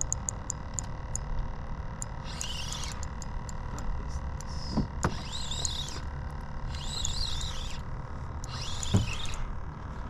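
A bird calling four times in short warbling phrases that rise and fall in pitch, over a steady rumble of wind on the microphone. A few light clicks come near the start and two soft knocks come later.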